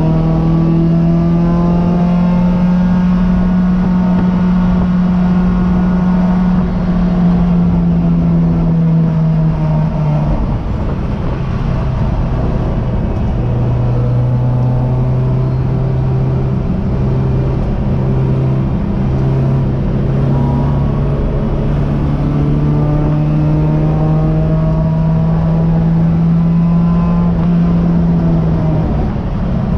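Race car engine heard from the driver's seat under hard running: the engine note climbs slowly for about ten seconds, drops sharply, then runs lower with a few brief breaks before building again through the second half and dropping once more near the end.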